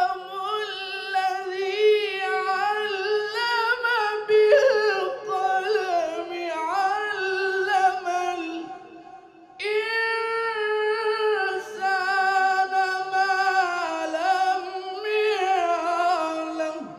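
A single high voice chanting Quranic verses in the melodic recitation style, in two long ornamented phrases with a short breath about nine and a half seconds in.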